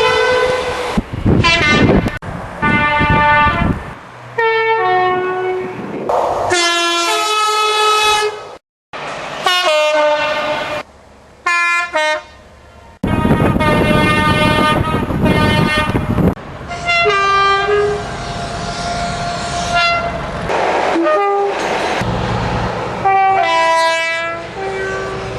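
A rapid series of short clips of British train horns, each clip cut off abruptly. The horns sound blasts that often step from a high note to a lower one, over the rumble of trains passing.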